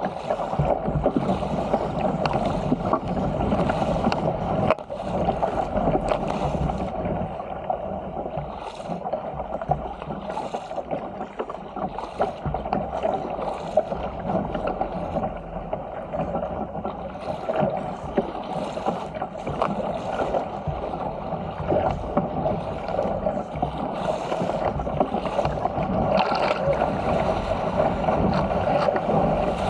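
Water rushing and splashing along the hull of a Stealth 475 fishing ski being paddled at speed through choppy sea, with frequent short irregular splashes over a steady rush.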